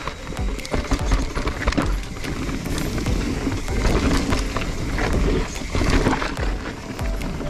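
Mountain bike riding fast down a rough dirt trail: tyres running over rocks and roots, with the bike rattling and knocking in many sharp clicks over a constant low rumble.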